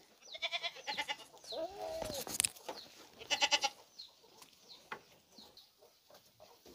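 Goats bleating: several short, quavering bleats.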